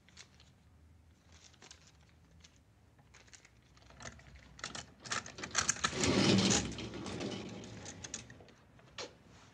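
Scattered clicks, then a folding metal scissor gate rattling and clattering as it is pulled open, loudest about six seconds in, with a few last clicks near the end.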